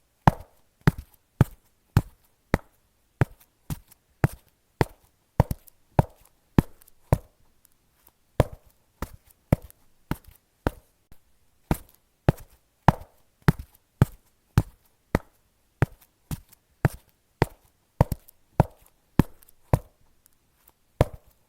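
Footsteps on concrete at a steady walking pace, each step a sharp slap with a lighter tick just before it, evenly spaced at roughly two a second.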